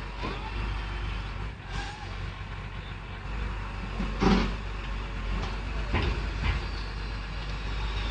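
Heavy diesel engine running steadily, with a few sudden knocks, the loudest about four seconds in.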